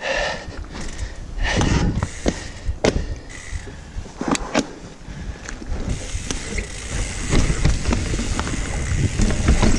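Mountain bike moving along a dirt trail: rolling rumble and rattles, with several sharp knocks in the first half, then a steady rush that grows louder from about six seconds in.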